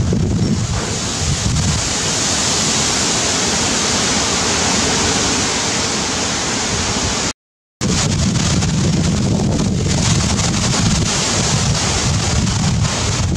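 Wind buffeting the microphone: a steady hiss over an uneven low rumble. It cuts out completely for about half a second, about seven seconds in.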